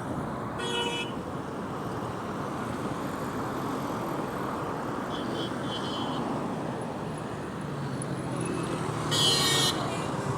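Steady road traffic noise with short vehicle horn toots: one about half a second in, a fainter one about five seconds in, and the loudest about nine seconds in.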